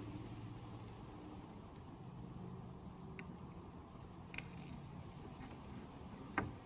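Faint handling sounds of a vinyl sticker being pressed and smoothed onto a van's rear door: a few soft clicks and rustles, with one sharper click near the end, over a low steady hum.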